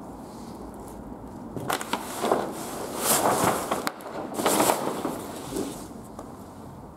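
Loose paper and cardboard litter rustling and crunching in about three short bursts in the middle, then once more faintly.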